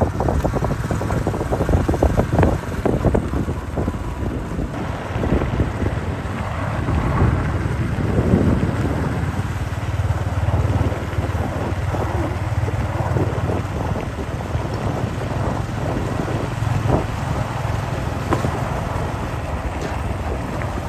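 Wind buffeting the microphone of a moving vehicle, over the steady low hum of its engine.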